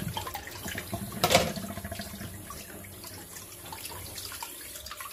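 Water sloshing and splashing in a kitchen sink as hands rinse out the belly cavity of a gutted fish in a tub of water, with one sharper splash about a second in.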